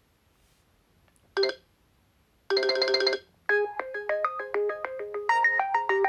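Oppo A16 phone ringtone playing. After a moment of quiet comes a short chime, then a held chord, then about three and a half seconds in a quick, bright melody of distinct notes begins.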